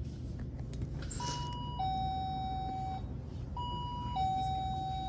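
Two-note ding-dong entry chime of a shop door, a short higher note stepping down to a longer lower one, sounding twice about two and a half seconds apart over a steady low hum.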